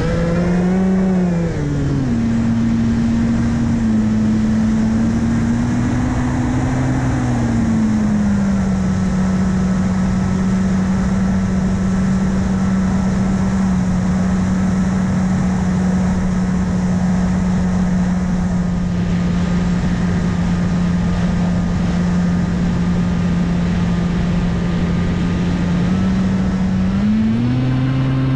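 Onboard recording of a brushless electric motor (2212 1400KV) spinning an 8x6 APC propeller in flight, a steady motor-and-prop drone with wind noise rushing over the microphone. The pitch shifts up and down with the throttle in the first few seconds, then holds steady for most of the time, and rises again near the end.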